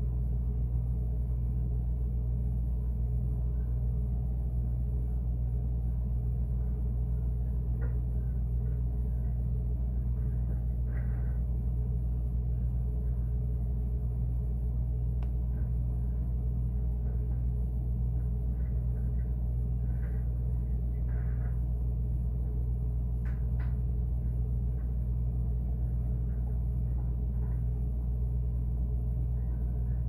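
Refrigerator running with a steady low hum, heard from inside the closed fridge, with a few faint clicks scattered through.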